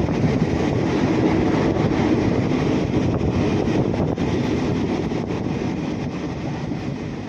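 Passenger train running along the track, a steady dense rumble that fades a little near the end.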